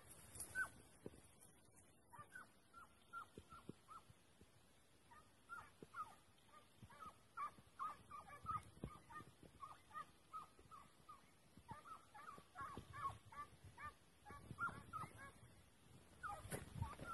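A pack of hunting hounds baying faintly on the trail of a roe deer: a steady run of short yelps, several a second and overlapping, growing busier in the last few seconds.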